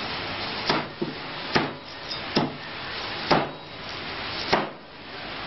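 Cleaver chopping on a cutting board: five sharp strokes about a second apart, over a steady hiss.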